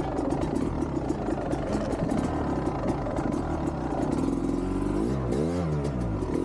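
Dirt bike engine revving hard under load on a steep hillclimb, with sharp rattling clicks through the first few seconds; about five seconds in the revs drop and then climb again.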